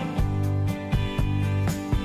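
Background music with a steady beat of about four strokes a second.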